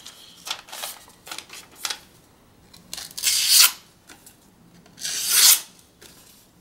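Sheets of paper rustling with small handling clicks, then two half-second rasping swishes about three and five seconds in: a freshly sharpened Russell Green River Works carbon steel knife slicing through paper to test its edge.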